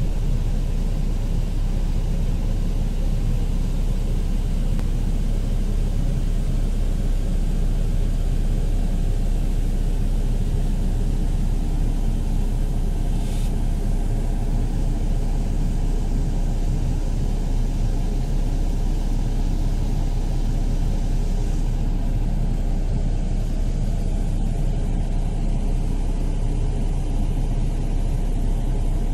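Steady low rumble of an AC bus on the move, heard from inside the passenger cabin.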